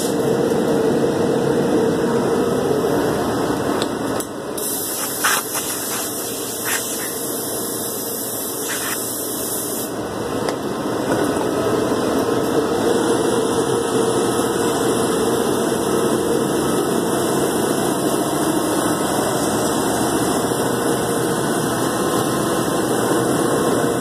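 Komo VR510 Mach 1 CNC router running: a steady machine drone with hiss, a little quieter for a few seconds in the early part, with a few light knocks between about five and nine seconds in.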